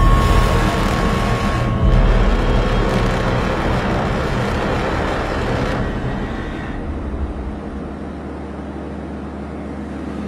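A motor vehicle's engine running steadily as it drives across snow. The sound turns duller about six seconds in.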